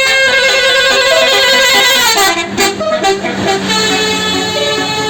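A bus's basuri musical horn (telolet) playing a tune of held notes, broken about two seconds in by a quick run of short alternating notes, then back to long held notes.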